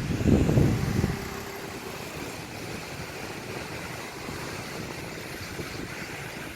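Steady, even rush of a tall waterfall's falling water, with a loud low rumble in the first second.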